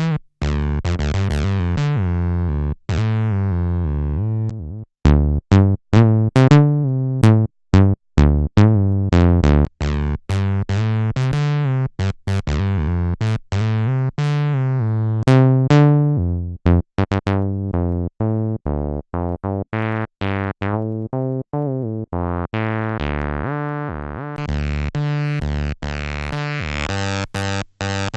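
Behringer TD-3 analog bass synth playing a sequenced acid bassline: short, buzzy notes stepping up and down in pitch with brief rests between them, each note's brightness decaying as the resonant filter closes. In the last few seconds the sound turns much brighter as the filter cutoff opens.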